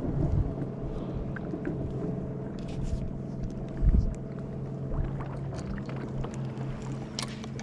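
Boat motor running steadily with a constant hum, while wind buffets the microphone with low rumbles, the strongest about four seconds in.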